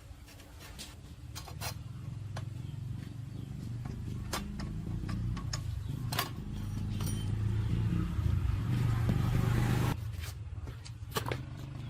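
An engine running, with scattered clicks and knocks over it. It grows steadily louder with a rising hiss, then cuts off suddenly about ten seconds in.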